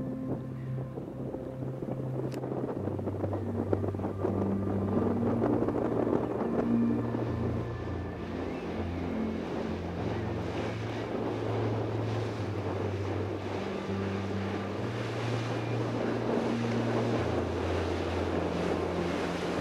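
Rushing and splashing of a small cargo ship's bow wave as it passes close by, with wind on the microphone. Soft background music with low held notes that change every few seconds runs underneath.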